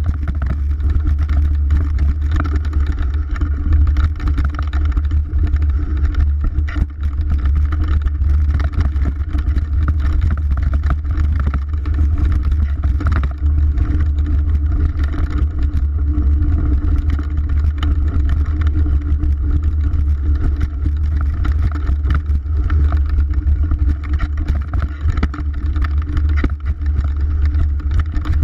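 Mountain bike descending a dirt singletrack at speed, heard through an action camera: a heavy, steady wind rumble on the microphone over the noise of tyres on dirt, with frequent small rattles and knocks from the bike over rough ground.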